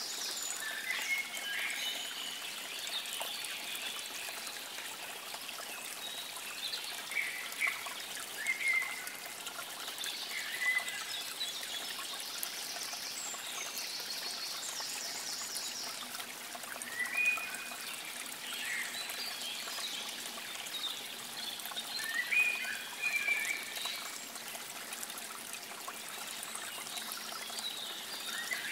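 Birds chirping and trilling in short phrases over a steady trickle of running water.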